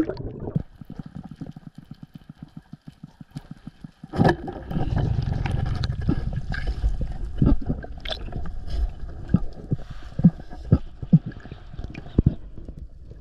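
Muffled underwater sound through a camera's waterproof housing: gurgling, rushing water with scattered knocks. A fast run of faint ticks fills the first few seconds, then a sharp knock about four seconds in, after which the water sound grows louder.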